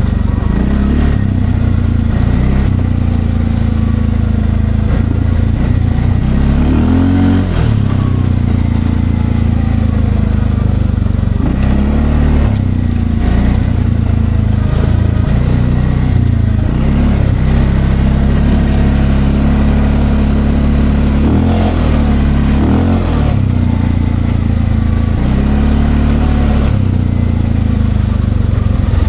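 Linhai Landforce 550L ATV's single-cylinder engine running under load while being ridden, its pitch rising and falling repeatedly as the throttle is opened and eased off.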